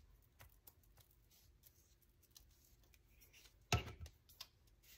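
Quiet handling of paper and a small plastic glue bottle, with scattered faint ticks. One sharp click comes near the end, followed by a few lighter taps.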